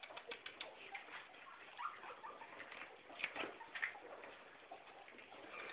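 Cuy guinea pigs rustling and shuffling, with light clicks and patter throughout and a few short, faint squeaks about two, three and four seconds in.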